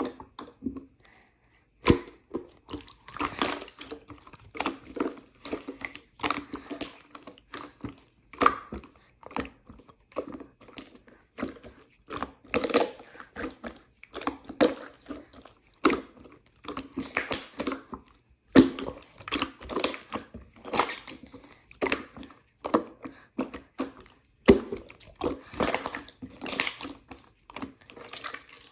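Slime being kneaded and squeezed, with irregular wet squishing and sharp little air-bubble pops and clicks, several a second.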